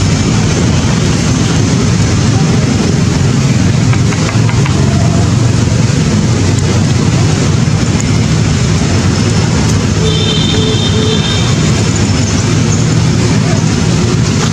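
Loud, steady engine noise with a low hum, like vehicle traffic running without a break. A short high squeal of about a second comes about ten seconds in.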